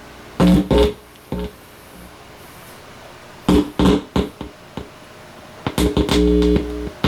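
Electric guitar played through a Behringer guitar amplifier: a few short picked notes, then a chord struck and held twice near the end. The amp is passing sound again after a broken cold solder joint on an audio output was repaired.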